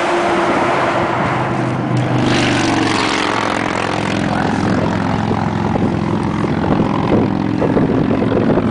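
A large engine running loudly and steadily, a low droning hum with a rougher, brighter stretch a couple of seconds in.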